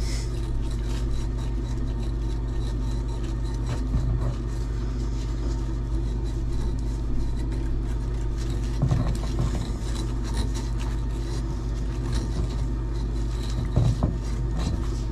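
A steady low mechanical hum, with scattered light scrapes and clicks and a few louder knocks as a hand tool works on the tub's supply pipework in the open wall.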